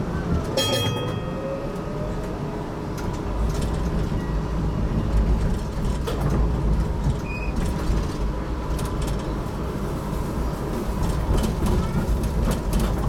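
GTL8 tram running along its track: a steady low rumble with scattered clicks, a gliding motor whine near the start and a brief ringing tone about half a second in. The rumble grows heavier from about three seconds in.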